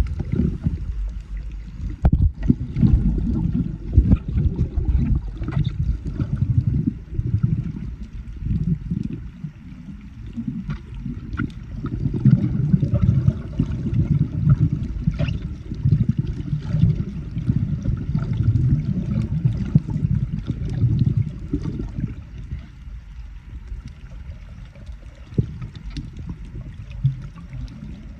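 Muffled underwater water noise picked up by a submerged camera: water rushing and sloshing over the housing in uneven surges as the snorkeler swims, with scattered faint clicks. It eases off over the last several seconds.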